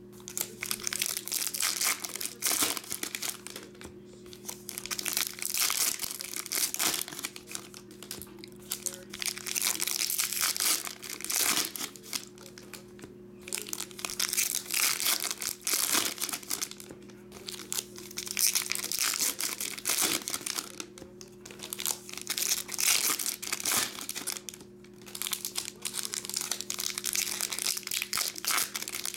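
Foil trading-card pack wrappers crinkling as they are handled and torn open, in repeated bursts every second or two with short quiet gaps.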